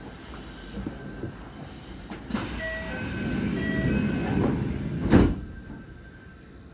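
Train door-closing chime, a short repeating pattern of alternating tones, then the train's sliding doors shutting with a loud thud about five seconds in.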